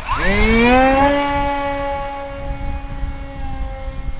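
Brushless electric motor (1400 kV) of a foamboard RC flying wing spooling up at launch: a whine that rises quickly in pitch and settles within about a second into a steady high drone at full throttle, easing slightly after. Wind rumbles on the microphone underneath.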